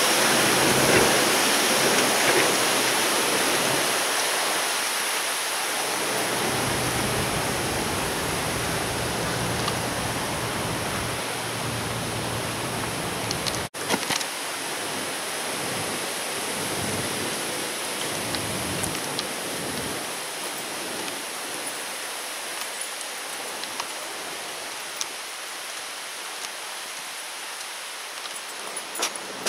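Steady rush of flowing water, slowly growing fainter, with a brief break about halfway through.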